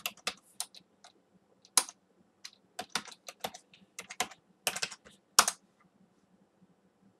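Computer keyboard being typed on: an irregular series of sharp key clicks that stops a little over two-thirds of the way through.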